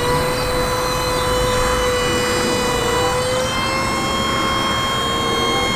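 Hydraulic pump of a truck-mounted aerial work platform (bucket boom lift) whining steadily as the boom lifts the basket, over a low engine rumble. The whine steps slightly in pitch a little past halfway.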